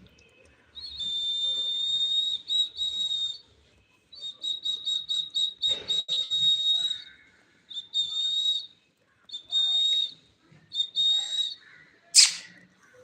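Pet parrot whistling a high, clear note in several phrases: long held whistles, a run of quick repeated chirps at about six a second, then shorter whistles. A short harsh burst near the end is the loudest moment.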